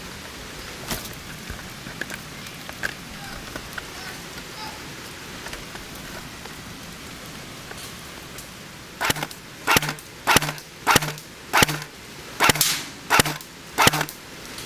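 Airsoft electric gun firing about ten single shots in quick succession, starting about nine seconds in, each a sharp crack with a brief gearbox whir; before that, only a few faint snaps and clicks.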